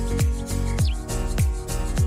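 Background music with a steady beat: a deep, falling kick drum about every 0.6 seconds under held notes and sharp percussion clicks.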